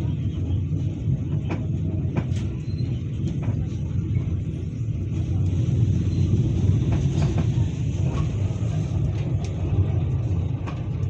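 Passenger train running: a steady low rumble of the wheels on the rails, with scattered sharp clicks, heard from inside the coach.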